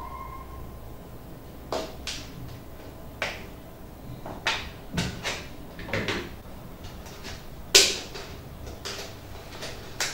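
Thin plastic water bottle crackling and clicking as it is cut into with a utility knife and handled: a string of irregular sharp cracks, the loudest about eight seconds in.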